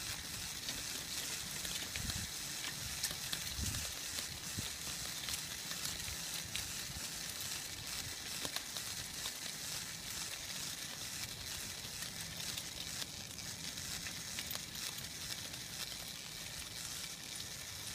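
Steady rolling hiss of a dog-pulled tricycle's tyres on asphalt, with scattered light clicks over it.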